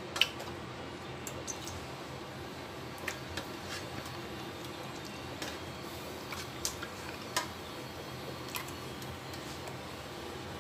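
Whole squid in marinade being turned and squeezed by hand in a stainless steel tray, giving scattered wet squelches and small sharp clicks at irregular moments. The sharpest click comes just after the start.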